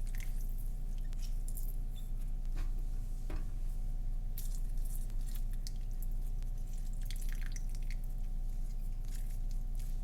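A cut lemon squeezed by hand into a bowl of sugar and melted coconut oil: wet squishing and dripping juice, heard as scattered short crackly sounds over a steady low hum.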